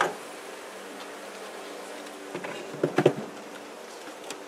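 Honeybees buzzing with a steady hum around an open box of cut-out comb. A few wooden knocks come about three seconds in as a board lid is set down on the box.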